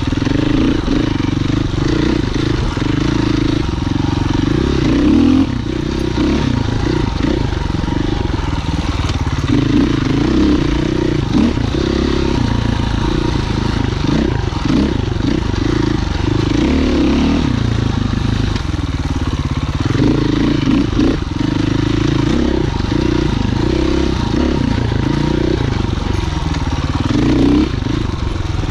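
Husqvarna FE 501 single-cylinder four-stroke enduro motorcycle engine running under way, its pitch rising and falling again and again as the throttle opens and closes, with scattered knocks and clatter from the bike.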